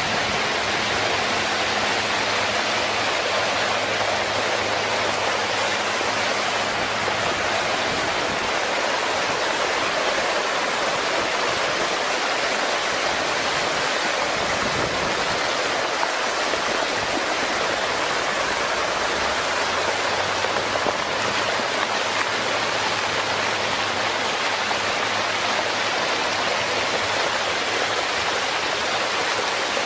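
Fast-moving flash-flood water rushing steadily.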